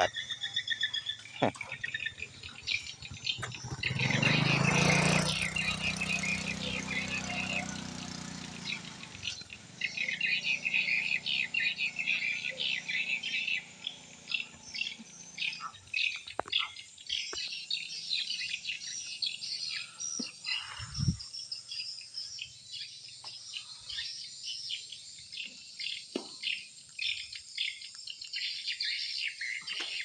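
Swiftlets chirping: a dense, continuous stream of rapid high twitters. A louder low hum swells and fades between about four and nine seconds in.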